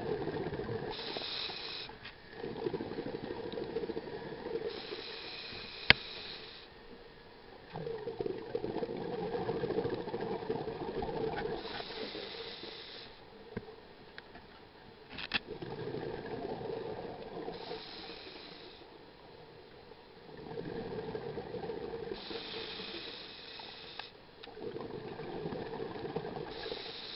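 A scuba diver breathing on a regulator, heard underwater: a short hissing inhale through the demand valve, then a longer rush of exhaust bubbles, repeating about every four to five seconds. Two sharp clicks stand out, one about six seconds in and one about fifteen seconds in.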